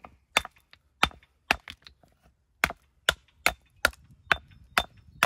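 Walling hammer striking the edge of a flat walling stone in a run of about ten sharp knocks, roughly two a second with one short pause, dressing the stone to shape.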